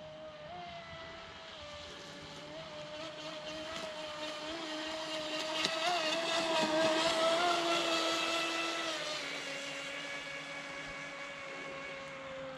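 Pro Boat Impulse 32 radio-controlled boat's brushless electric motor whining steadily as the boat runs across the water. It grows louder toward the middle and then fades, with its pitch dropping about three-quarters through as it passes.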